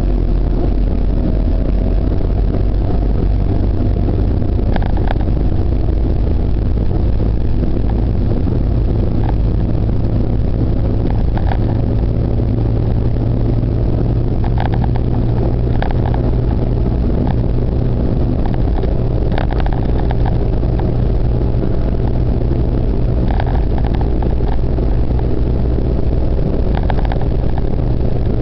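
Car engine and road noise heard from inside the cabin while driving: a steady low drone, with a few short clicks or rattles along the way.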